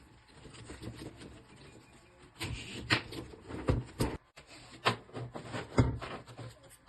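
Sharp clicks and knocks with rustling of the strap as a Soviet sling's metal hardware is handled and fitted onto an AKM rifle, about five sharp clicks spread over a few seconds.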